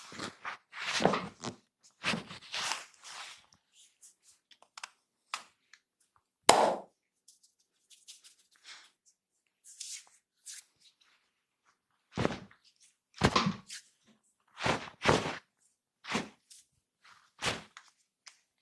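Hands-on massage: irregular slapping and rubbing strokes, with a pause in the middle and one sharp crack, the loudest sound, about six and a half seconds in.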